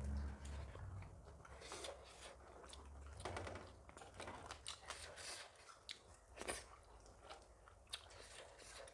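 Close-up eating sounds: quiet chewing and mouth smacks, with scattered soft clicks and scrapes, from people eating a meal of dhido and curry by hand.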